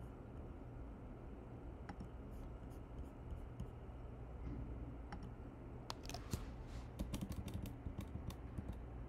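Faint clicks of a computer keyboard and mouse over a low steady hum. A quick run of clicks comes in the last few seconds.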